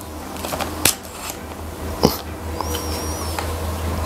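Handling noise from an air rifle being assembled: a few sharp clicks and small knocks of its parts as the stock is adjusted and tightened, over a steady low hum. A short high wavering chirp sounds a little past the middle.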